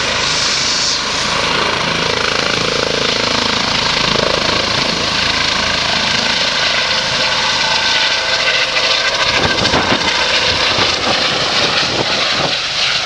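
Helicopter running loud and close, an even rushing noise of engine and rotor with a thin high turbine whine over it.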